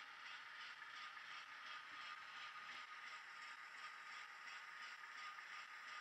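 Hornby HM7000 sound decoder's Class 08 diesel sound idling, played faintly through the model locomotive's small speaker: an even beat of about three a second over hiss, with a steady high tone.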